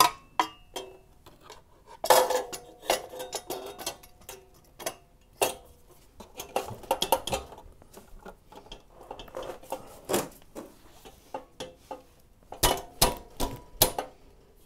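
Metal clinks and knocks as a Touratech lower crash bar and its mounting bolts are handled and fitted against a motorcycle's frame, some with a short ring. The loudest cluster of knocks comes near the end.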